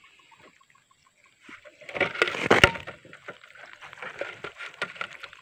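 Water sloshing and splashing in a wire-mesh fish trap full of live eels: quiet at first, then a loud burst of splashing with sharp clicks about two seconds in, followed by scattered smaller splashes and clicks.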